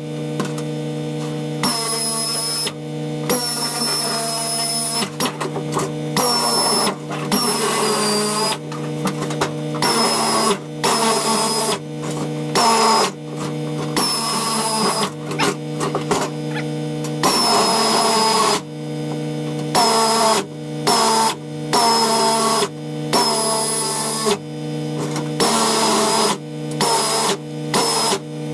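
Pneumatic air shear cutting sheet metal in many bursts, each from a fraction of a second to a couple of seconds long, starting and stopping with the trigger. Each burst has a high-pitched whine, and a steady low hum runs underneath.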